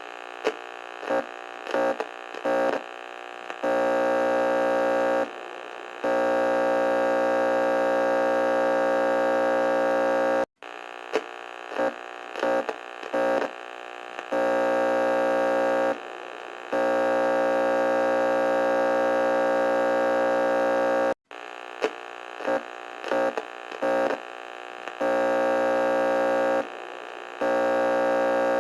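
Emergency alert alarm tone, a buzzy electronic tone with many overtones: each cycle starts with a few short beeps and then holds long steady tones, cutting out briefly and repeating about every ten and a half seconds.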